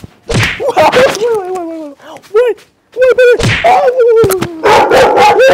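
Loud wordless cries and groans, short calls whose pitch arches up and down, with one longer cry falling in pitch about a second in, broken by sharp knocks.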